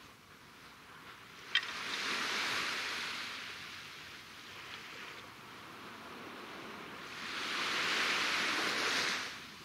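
Small waves washing up a sandy beach: a swell of surf that rises about a second and a half in and fades, then a louder one near the end. A single sharp click comes just as the first wave arrives.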